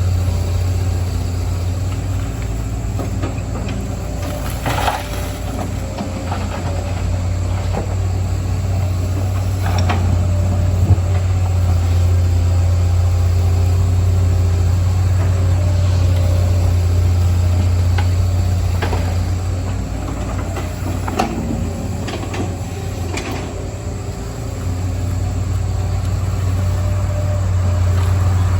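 Hydraulic excavator's diesel engine running steadily under load, with a few sharp metallic knocks now and then from the working machine.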